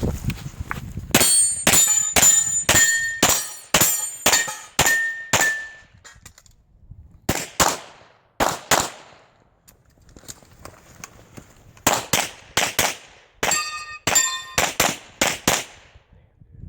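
Strings of rapid pistol shots, about two to three a second, broken by short pauses. After several of the shots, steel targets ring with a thin metallic tone.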